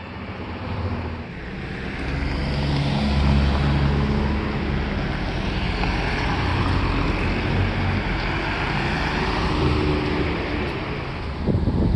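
Car driving along a road: a steady engine drone and tyre and road noise, heard from inside the moving vehicle. Wind starts buffeting the microphone near the end.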